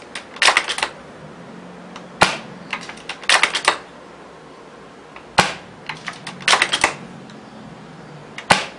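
HPA-converted Amoeba Striker bolt-action airsoft sniper rifle (Mancraft SDiK kit) firing BBs three times, about three seconds apart, each shot a single sharp pop without the metallic piston clack of a spring rifle. Between shots the bolt is cycled to rearm, a quick run of clicks.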